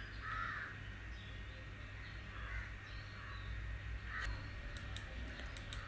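Quiet room background with a low steady hum and a few faint distant bird calls. A handful of light clicks come near the end.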